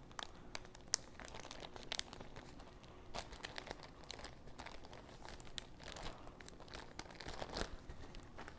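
Plastic zip-top baggie being zipped shut and handled: faint crinkling of the plastic with many small, irregular clicks.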